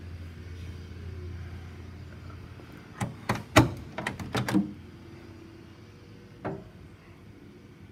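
A quick run of about seven sharp clicks and knocks, then a single knock about three seconds later, as the car's door and its window glass are handled.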